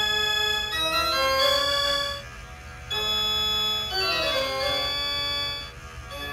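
Organ music: a melody of held, changing notes, with a falling run of notes about four seconds in.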